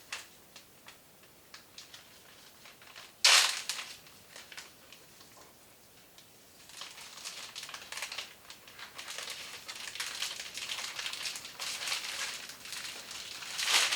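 A bag crinkling and rustling as a seasoned steak is put into it. There is one sharp rustle about three seconds in and steady crinkling through the second half.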